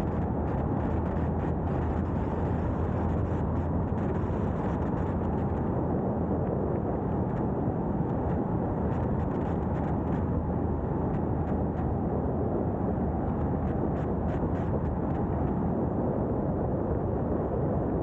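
2022 Subaru WRX cruising at a steady speed, heard from a camera mounted on its roof: a steady rush of tyre and wind noise with a low hum underneath.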